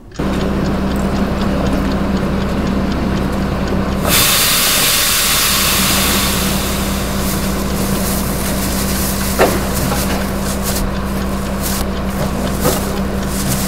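Garbage truck engine running steadily, with a loud hiss starting about four seconds in and lasting around three seconds, then a few sharp knocks.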